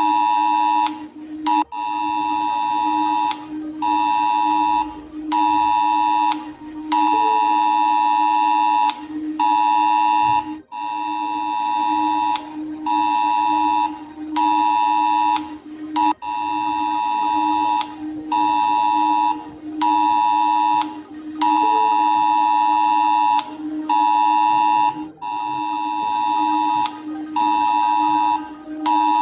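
Emergency alert attention tone for a Romanian EAS alert: a harsh two-tone beep sounding in repeated pulses of about one to two seconds with short breaks, over a steady low hum.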